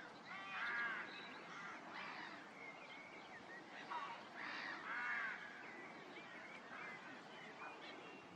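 Faint birds calling outdoors: a few harsh calls in bursts, about a second in, around two seconds and strongest around four to five seconds, with thin chirps between them.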